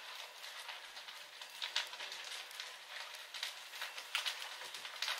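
Small wooden shed burning, the fire crackling with irregular pops over a steady hiss.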